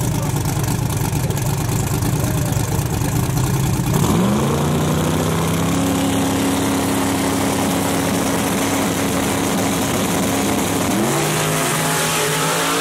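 Twin-turbo Mustang drag car's engine idling with a heavy low rumble, then about four seconds in revving up and holding a steady high rev on the starting line. Near the end the revs climb again as the car launches down the strip.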